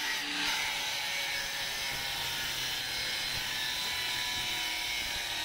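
Angle grinder running steadily, its disc grinding metal on a diesel engine's side cover to cut away an added outside bearing that overheated and seized there.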